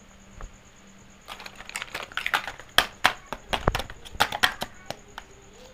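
Hard plastic toy kitchen pieces clicking and clattering as they are handled: a quick run of sharp clicks and knocks starting about a second in and lasting around three seconds.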